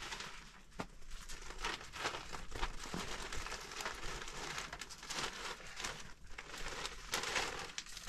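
Plastic crinkling and rustling: a dense run of small crackles that starts suddenly.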